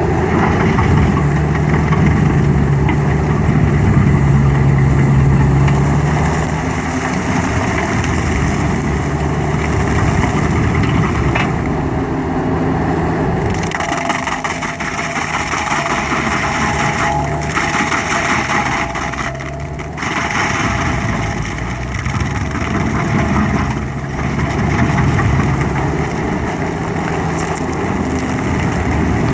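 Stump grinder running, its engine droning steadily under load as it grinds a stump, with a couple of abrupt shifts in the sound partway through.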